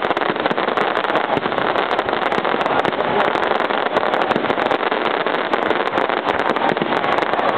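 Fireworks going off in a dense, unbroken barrage of rapid crackling pops that blend into one steady wash of noise.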